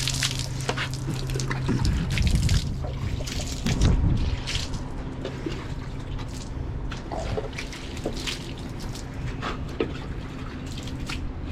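Water cupped and splashed onto a brick wall, pattering and trickling down the brickwork, with heavier splashes about two and four seconds in. The wall is being pre-wetted so the acid wash that follows won't soak into the brick or leave streaks.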